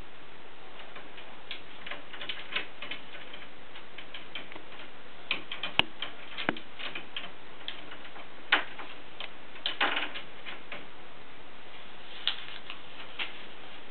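A cat pawing and clawing at a closed cupboard door: irregular scratches, clicks and knocks as the door rattles against its frame without opening. The loudest knocks come about halfway through and again a little later.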